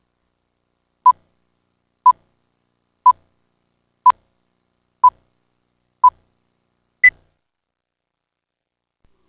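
Countdown-leader beeps: six short beeps of the same pitch, one each second, then a seventh, higher beep a second later that marks the end of the countdown.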